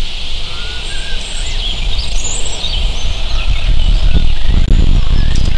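Outdoor field recording of several birds giving short chirping calls over a steady high hiss, with a low rumble that grows louder about three and a half seconds in.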